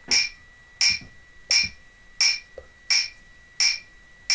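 Metronome click track ticking steadily, a little under one and a half clicks a second, over a faint steady high-pitched tone.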